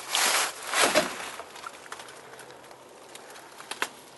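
Footsteps crunching in dry fallen leaves: two loud crunches in the first second, then a few faint clicks near the end.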